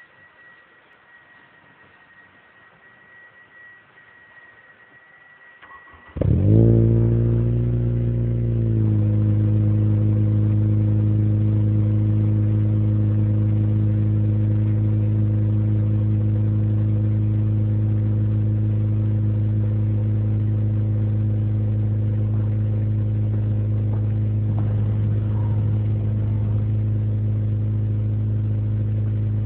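Honda Civic Type R four-cylinder engine starting through an Invidia G200 cat-back exhaust. After a faint steady high tone, it cranks and catches about six seconds in and runs at a slightly raised idle for a couple of seconds. It then settles into a steady, deep idle at the tailpipe.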